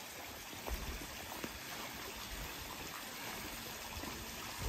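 Steady, faint rush of flowing stream water, with a couple of brief low thuds about a second in and near the end.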